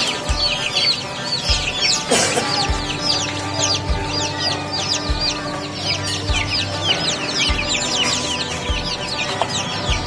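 A cage full of young chicks peeping constantly, many short, high, falling peeps overlapping one another. Under it runs background music with a low beat a little slower than once a second.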